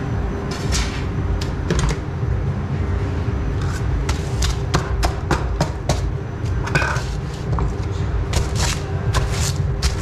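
Pizza kitchen work noise: many sharp clicks and knocks, coming thickest in the second half, over a steady low hum.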